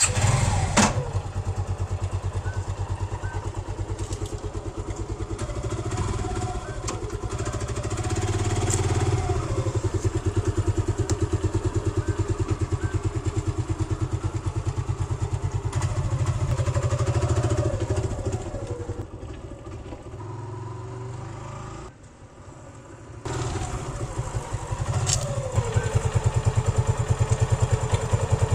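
Suzuki Gixxer motorcycle's single-cylinder engine running with a fast, even exhaust beat, its pitch rising and falling several times as the throttle opens and closes. It breaks off about 22 seconds in and picks up again about a second later.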